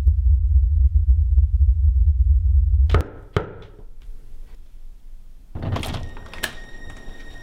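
A loud low rumble that cuts off suddenly about three seconds in with a sharp knock, and a second knock just after. A heavier thunk follows near the end, then faint high steady tones.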